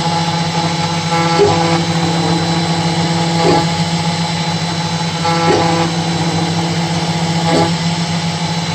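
Home-built CNC machine cutting wood on a roughing pass: the spindle motor runs with a steady hum, while the stepper motors give pitched whines that change about every two seconds as the cutter moves back and forth across X and Y.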